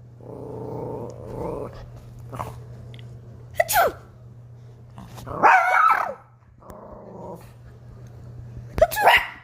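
A dog growling low and grumbling, with a loud bark-like cry about halfway through, in reaction to a person's fake sneezes; sharp sneeze bursts come a few seconds in and near the end.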